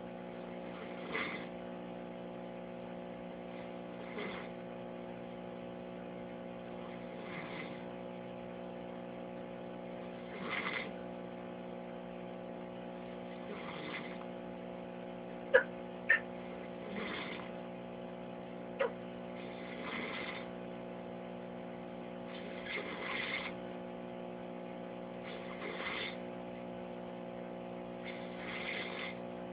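A sleeping person snoring: a noisy, rasping breath about every three seconds over a steady electrical hum. A few sharp clicks sound around the middle.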